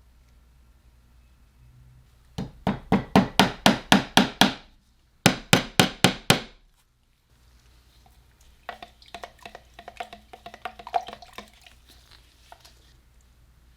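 Two runs of quick rhythmic rasping strokes, about four a second, then a spell of fainter, irregular clicks and taps.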